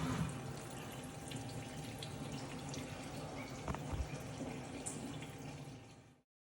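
An old drilling/milling machine's motor hum stops just after the start, leaving a faint hiss with small ticks and one knock about four seconds in; the sound then fades and cuts out.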